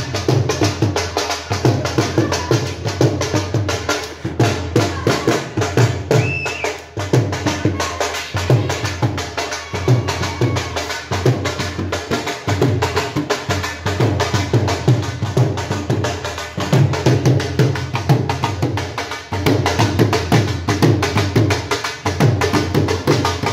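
Dhol, the double-headed barrel drum, beaten with sticks in a fast, continuous rhythm: clusters of deep bass strokes over rapid, sharp strokes on the higher head.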